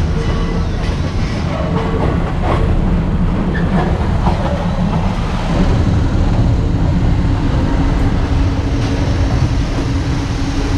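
Passenger train carriage rolling over the tracks as it leaves the station: a steady rumble and rattle with a few clacks of the wheels over rail joints and points near the start. A steady hum joins about halfway through.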